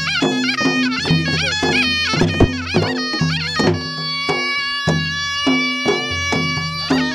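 Baloch folk dance music: a reed wind instrument plays a wavering, ornamented melody and then holds steady notes from about four seconds in, over a regular dhol drum beat.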